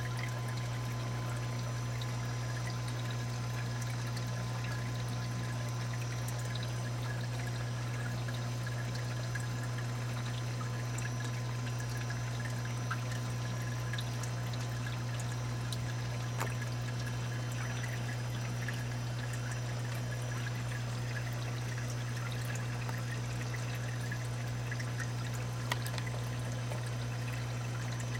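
Water trickling and pouring steadily through a saltwater aquarium's refugium and sump, over a steady low hum, with a few faint clicks.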